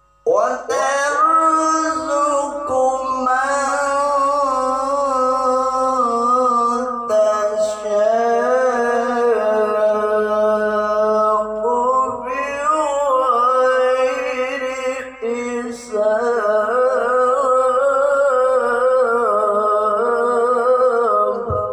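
A male qari reciting the Quran in the melodic tilawah style, drawing out long, ornamented notes with a wavering pitch. The voice runs in a few long phrases with short breaks between them.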